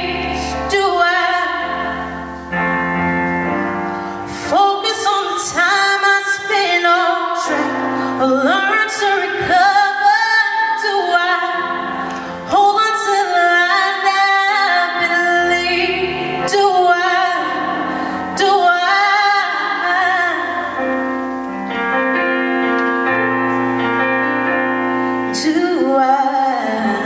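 A woman singing a song solo, over an instrumental accompaniment of long held chords; her voice slides between notes and holds them.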